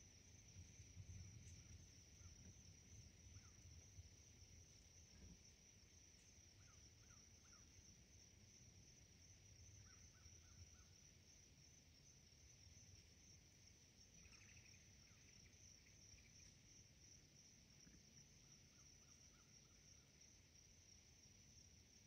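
Near silence: faint woodland ambience with a steady high-pitched insect drone and a few faint, short bird chirps scattered through it.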